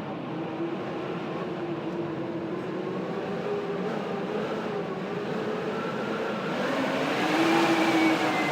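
Blizzard wind howling: a steady rush with wavering, moaning tones that slide up and down in pitch, swelling louder near the end.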